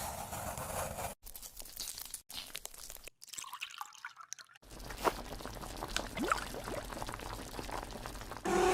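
Food-preparation sounds in several short clips cut one after another: crackling and crunching with scattered clicks, and liquid dripping and pouring. A short pitched call comes right at the end.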